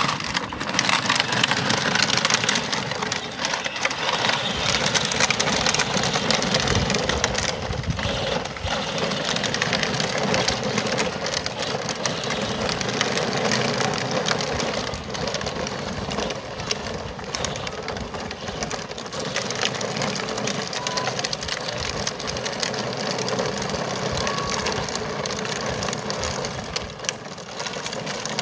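Child's battery-powered ride-on ATV driving steadily along an asphalt path: the hard plastic wheels rumble on the pavement over the whir of the electric motor and gearbox.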